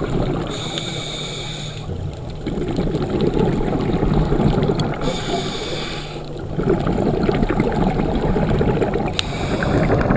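Scuba regulator breathing underwater: a short hissing inhale comes three times, about four and a half seconds apart, and each is followed by a longer, low bubbling exhale.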